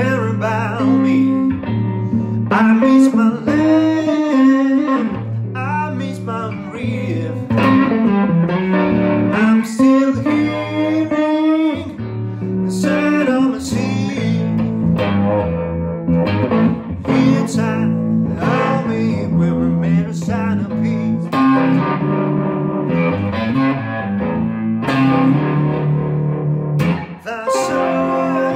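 Electric guitar, a sunburst Strat-style, playing a lead line over a full band backing track with bass and drums.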